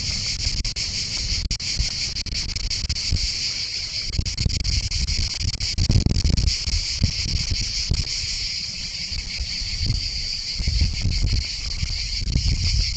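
A steady, high-pitched chorus of insects such as crickets, with an uneven low rumble of wind or handling noise on the microphone underneath.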